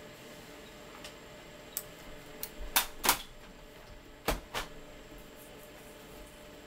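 Several sharp clicks and knocks as a sheet of paper is slid into a Samsung CLP-315w colour laser printer and its case is handled, the loudest three coming around the middle, over a faint steady hum.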